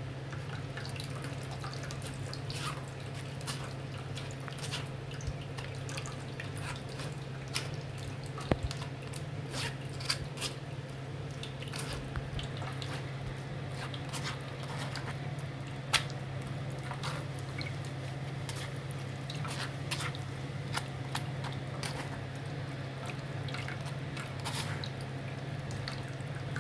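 Blended tomato purée being worked through a strainer: scattered irregular clicks and light wet dripping sounds, over a steady low hum.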